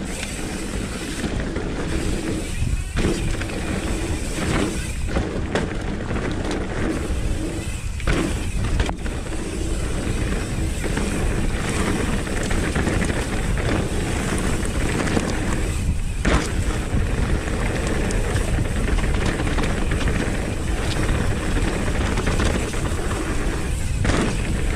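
Steady rush of wind on a helmet camera mixed with tyre and chassis noise from a Nukeproof Reactor 275 mountain bike riding fast downhill, with scattered short knocks from bumps in the trail.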